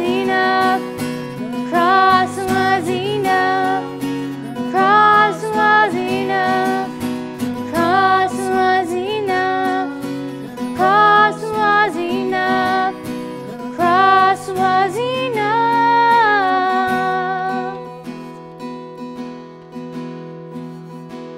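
A woman's voice singing a worship song over strummed acoustic guitar, in phrases of about two seconds, ending on a long held note with vibrato about 15 to 17 seconds in. The guitar then plays on alone for the last few seconds.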